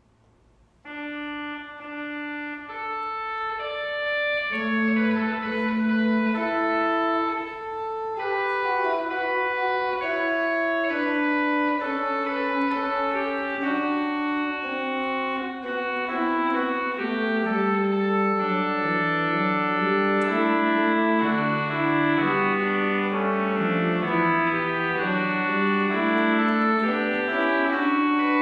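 Organ music: a slow passage of held chords and moving lines, starting about a second in after a brief silence.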